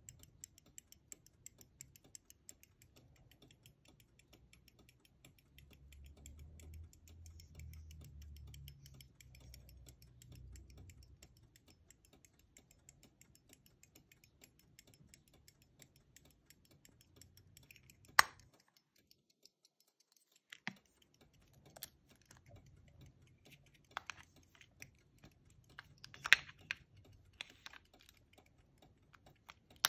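Antique verge fusee pocket watch ticking rapidly and evenly, with a few louder sharp clicks from the watch and its case being handled.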